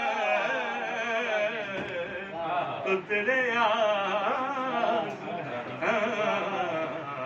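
A man singing a naat in classical style, holding long notes that waver and bend in ornamented runs.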